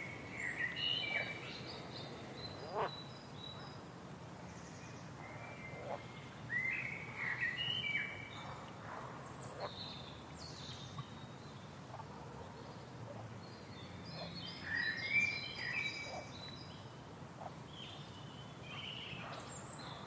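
Forest ambience: small birds chirping in a few scattered bursts of short, high, down-gliding calls over a steady background hiss.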